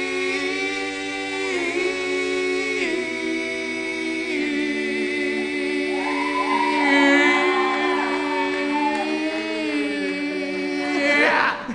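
Several male voices holding the song's last sung note in close harmony, one long chord, with one voice adding a higher wavering run about halfway through. They cut off together near the end.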